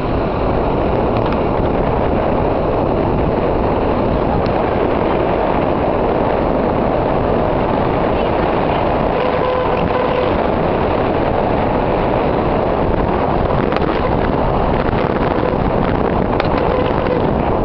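Car driving along a street, heard from inside: a steady mix of engine, tyre and wind noise with no breaks.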